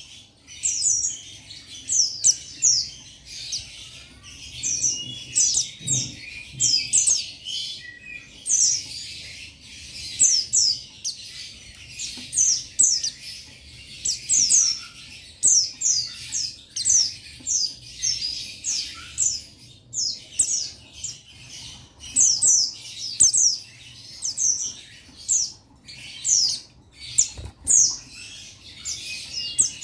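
Buxtoni white-eye (pleci) calling on and on in a cage: a rapid run of short, high, downward-slurred chirps, several a second. The title calls it calling out to a rival. A few wing flutters can be heard among the calls.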